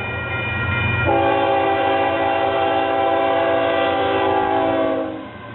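Locomotive air horn sounding a chord of several steady notes: it eases briefly near the start, then sounds a long blast that cuts off about five seconds in. A steady low rumble from the passing train runs underneath.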